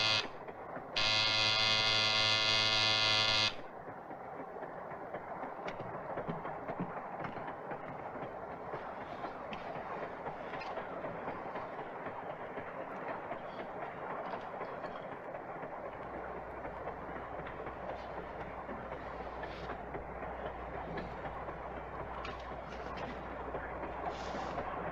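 A passenger train running, heard from inside the car as a steady rumble with faint rail clicks. It opens with a loud, buzzing horn blast that cuts off about three and a half seconds in, and a low hum joins the rumble past the middle.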